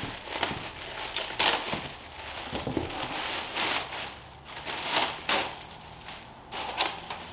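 Clear plastic bag crinkling and rustling in irregular bursts as it is pulled off a new leaf blower and shaken loose.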